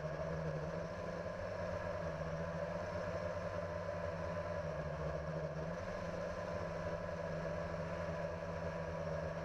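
Multirotor drone's electric motors and propellers humming steadily at an even pitch, heard through the camera mounted on the drone.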